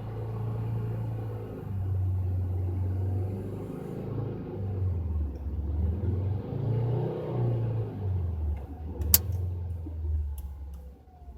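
2012 Volkswagen Jetta's 2.5-litre five-cylinder engine running with the air conditioning switched on, its low hum shifting up and down in pitch, with the grinding noise the owner is demonstrating. A single sharp click about nine seconds in.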